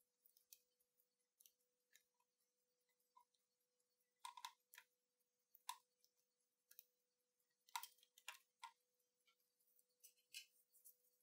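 Near silence broken by faint, irregular clicks and ticks of small parts being worked on a plastic Sony WM-F63 Walkman case: a split washer and a small metal tool at the battery-door hinge, with clusters about four seconds in, near the middle and near the end.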